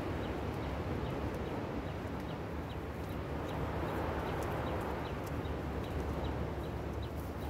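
Wind rumbling on the microphone on an exposed clifftop, with a short high chirp repeating about twice a second.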